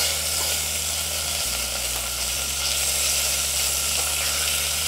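Chicken thigh pieces sizzling steadily as they get a light sear in a stainless steel pot.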